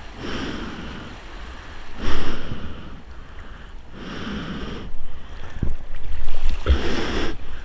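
Shallow whitewater washing and sloshing close to the microphone in repeated surges, with wind buffeting the mic; the loudest surges come about two seconds in and again over the last few seconds.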